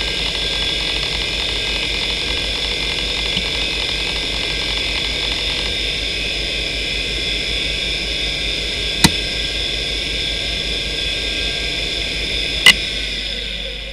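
Western Digital Caviar 2340 3.5-inch IDE hard drive spinning at 3322 rpm with a steady whine and hiss. The rapid seek chatter of a benchmark stops about six seconds in and the drive idles. Two sharp clicks come about three and a half seconds apart, the second louder, and near the end the drive starts to spin down, its whine fading.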